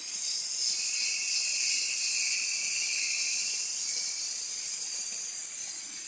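Waterfall and stream water rushing over rocks, a steady hiss.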